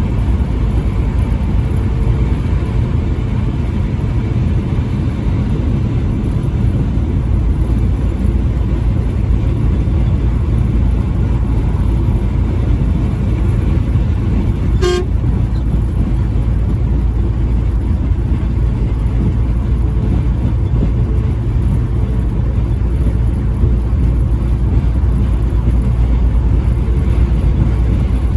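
Steady low rumble of a moving vehicle. A faint horn tone sounds in the first few seconds, and a single sharp click comes about halfway through.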